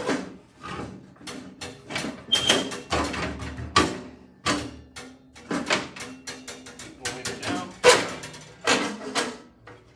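Sheet-metal frame and blower housing clanking, knocking and scraping against a steel wood-stove insert as they are tipped back and slid onto it: an irregular string of metal knocks and rattles, a few of them ringing briefly, stopping suddenly near the end.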